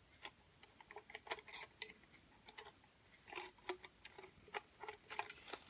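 Light, irregular clicks and taps of small plastic Play-Doh tools being handled and set down, a few a second.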